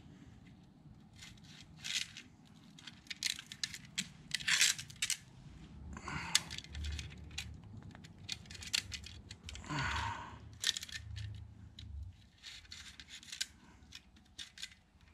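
Chainsaw chain being worked by hand around its guide bar: metal links clicking and rattling against the steel bar in short, irregular spells.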